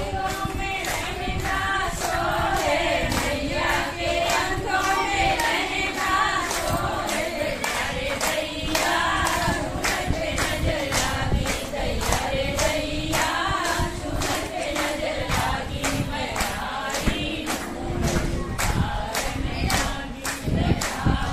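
A group of women singing a devotional song together, with hand claps keeping a steady beat of about two a second.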